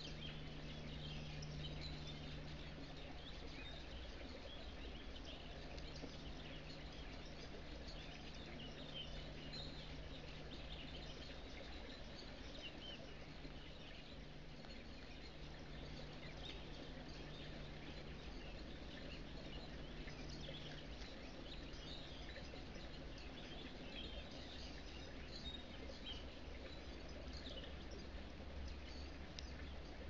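Faint forest ambience: scattered short chirps of small birds over a steady hiss, with a low hum that drops out now and then.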